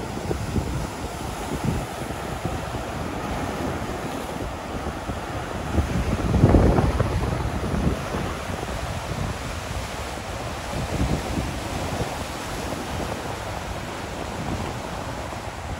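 Surf breaking and washing up on the shore, with wind buffeting the microphone; a louder rush swells up about six and a half seconds in.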